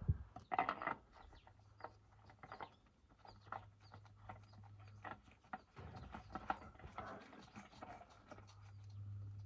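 Faint, irregular clicks and light scrapes of a new oil filter being spun onto its threads by hand, over a low hum that comes and goes.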